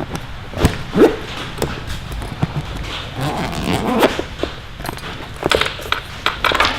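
Tools and gear being handled in and pulled from a Veto Pro Pac Tech LC tool bag: a run of knocks, clicks and rustles, with a few short pitched squeaks among them.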